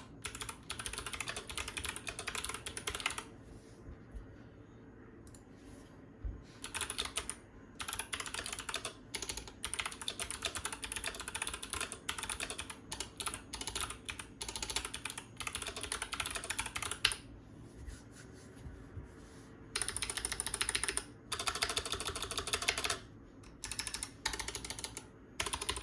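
Custom ID80 mechanical keyboard with Kailh Box Jade clicky switches, foam-dampened case and GMK keycaps being typed on quickly, in runs of rapid key clicks broken by a few pauses of a few seconds.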